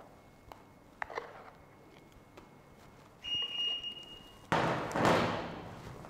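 Silicone spatula scraping thick cake batter out of a glass mixing bowl and into an aluminium cake tin. There are a few light taps, then a high squeak lasting about a second, then a louder rushing scrape near the end as the batter is pushed and spread in the tin.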